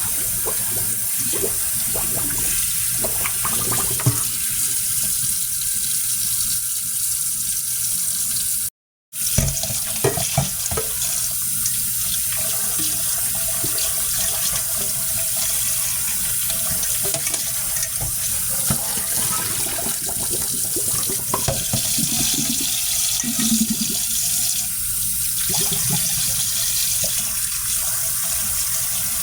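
Kitchen faucet running steadily into the sink while raw chicken wings are rinsed under it, with small knocks now and then. The sound cuts out completely for a moment about nine seconds in.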